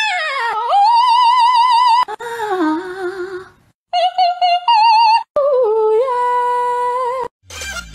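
A high voice singing a melody of long held notes with a strong, even wobble, in a few phrases with short breaks between them.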